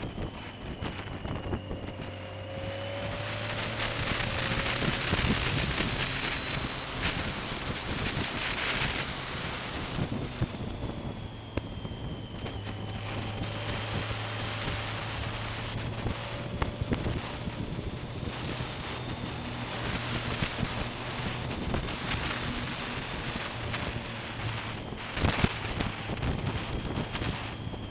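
Wind buffeting the microphone of a moving motorcycle, with the engine's steady low hum underneath, its pitch drifting a little as the speed changes. A short sharp crackle about 25 seconds in.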